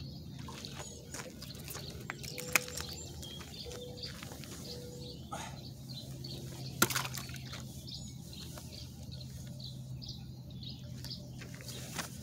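Outdoor ambience: faint bird chirps over a steady low hum, broken by two sharp clicks, the louder about seven seconds in.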